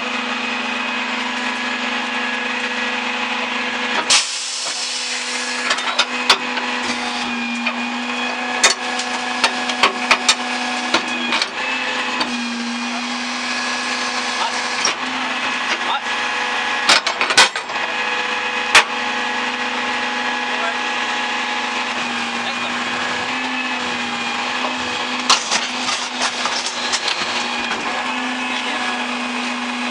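Garbage truck with a Leach 2R3 rear-loader body running with a steady high hydraulic whine over the engine, its pitch lifting slightly now and then as the hydraulics take load. Scattered sharp metal clanks and knocks from the chain and steel dumpster.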